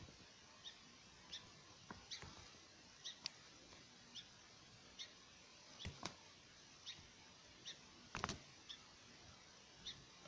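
Near silence with a faint high chirp repeating roughly every two-thirds of a second, and a few light clicks and knocks, the loudest a short cluster about eight seconds in.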